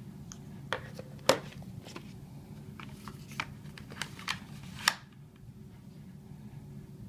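Unboxing handling noise: a string of clicks, taps and rustles as a small device is set into a cardboard box and a cable and paper inserts are lifted out, with a sharp knock about a second in. It goes quieter after about five seconds.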